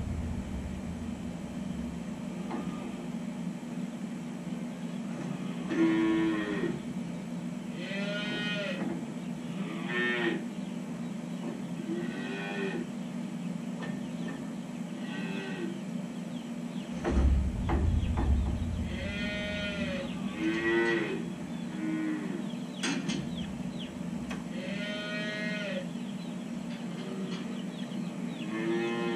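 Dairy calves mooing: about nine separate calls, some in quick pairs, over a steady low hum, with a brief low rumble about two-thirds of the way through.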